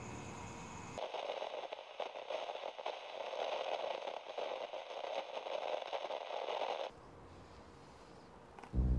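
Crackling static noise, like a detuned radio or a damaged tape, for about six seconds; it cuts off suddenly. Just before the end a loud low drone comes in.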